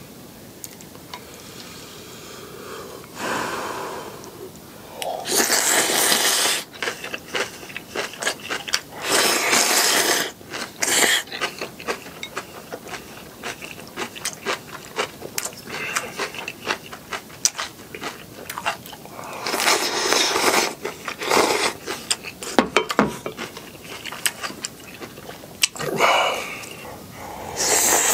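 Close-miked slurping of kalguksu noodles in several loud, hissing pulls about a second long, with wet chewing and crunching between them.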